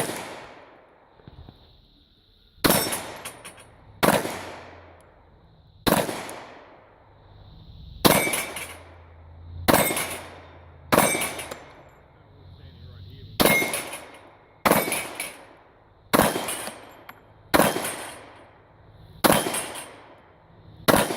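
Glock pistol fired as a slow string of single shots, about a dozen, roughly one every one and a half seconds, each shot leaving a long echoing tail.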